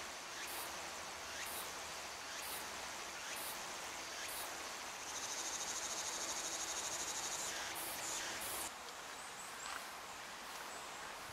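Insects calling in woodland: faint high chirps about once a second, and a loud, fast-pulsing high buzz for about two and a half seconds near the middle that cuts off sharply, over soft outdoor hiss.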